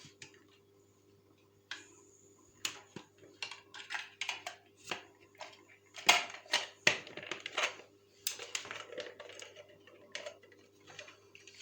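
Plastic parts of a waterfall aquarium filter clicking and knocking as they are handled and pushed into place, an irregular run of sharp taps over a faint steady hum.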